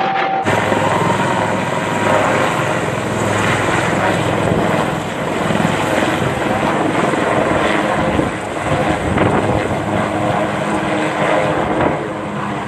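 Military helicopter's rotor and engine running steadily overhead, starting abruptly about half a second in.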